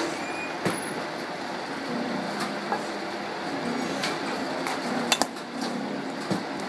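Batting-cage sounds: about half a dozen sharp knocks and metallic clinks from bat, balls and cage, the loudest a quick pair about five seconds in, over a steady background hum.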